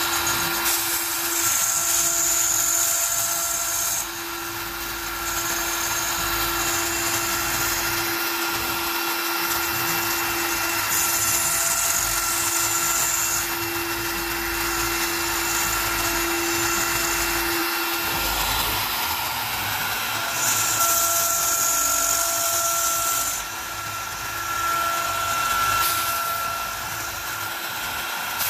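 CNC router spindle whining steadily at high speed as a single-flute upcut spiral bit cuts 3/8-inch cast acrylic. The high hiss of the cut swells and fades in stretches of a few seconds as the bit works around the circle.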